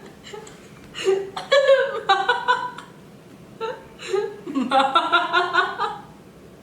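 Children laughing in two bursts of quick, high-pitched giggles: one about a second in, the other about four seconds in.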